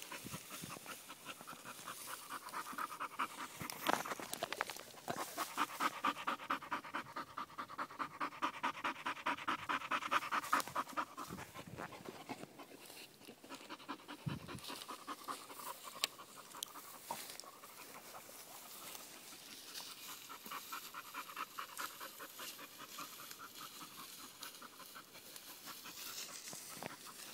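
A young bull terrier panting fast, in quick regular breaths that fade for several seconds midway and then resume. A few sharp clicks are heard among the breaths.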